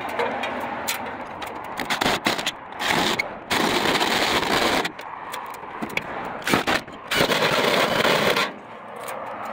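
Cordless drill boring through a house's soffit, running in two bursts of over a second each, the second near the end, with sharp clicks and knocks in between.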